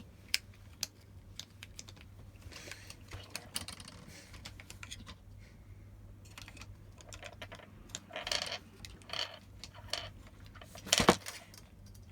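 Small printer parts being handled and fitted by hand: scattered light clicks and taps of plastic and metal as the belt tensioner and its cover are worked onto the Ender 3 V2's aluminium rail, with a few short scrapes and one louder click near the end.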